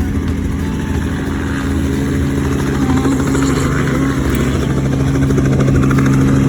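Helicopter running with a steady engine and rotor drone, growing a little louder toward the end.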